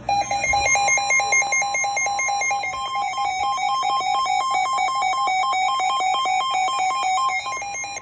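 Weather alert radios sounding their warning alarm for a severe thunderstorm warning: loud, rapid beeping alternating between two pitches, with a steady higher tone joining about a second in. The beeping stops near the end.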